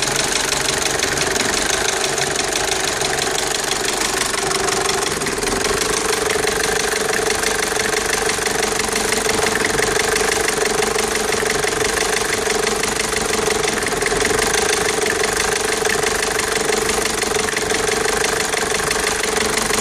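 Renault Safrane 2.2 dT turbodiesel engine idling at a steady level, with a rapid ticking clatter and a steady hum over it. The owner says it does not run smoothly and makes a strange noise.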